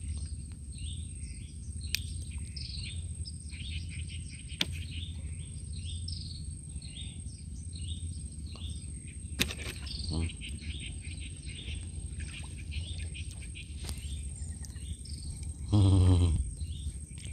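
Many short bird chirps and tweets in a busy, overlapping chorus, over a steady low rumble, with a few sharp clicks.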